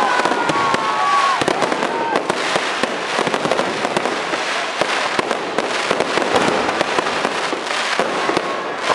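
Fireworks display: continuous dense crackling and popping from fountains and aerial shell bursts. High whistles fade out about two seconds in.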